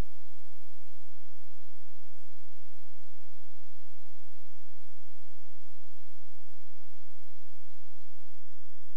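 Steady electrical hum with an even hiss from VHS tape playback, unchanging throughout; a faint high tone drops out and another shifts slightly near the end.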